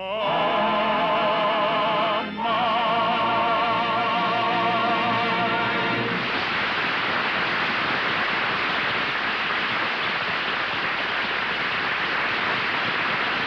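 Operatic singing with orchestra holding long final notes with a wide vibrato, broken briefly about two seconds in, ending about six seconds in. An audience then applauds steadily.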